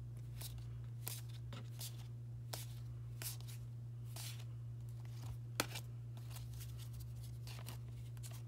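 Pokémon trading cards being slid and flicked one by one off a stack in the hands: light, irregular card clicks and swishes, one a little sharper past halfway, over a steady low hum.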